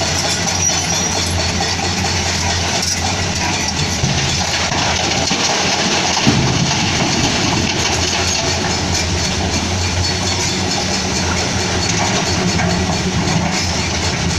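Heavy diesel machinery running steadily, a Komatsu PC210-10MO excavator working while loading a dump truck, with a low engine drone under a constant noisy hiss. There is one brief knock about six seconds in.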